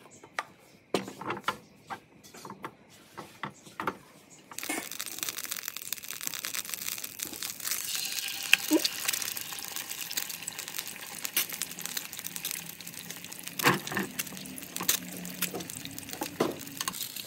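A few scattered clicks and taps, then about four and a half seconds in a sudden steady sizzle and crackle of eggs frying in hot oil in a nonstick pan, with a couple of sharp knocks near the end.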